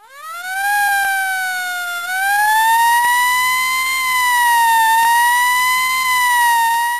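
Emergency vehicle siren winding up steeply in pitch at the start, then holding a slow wail that gently rises and falls.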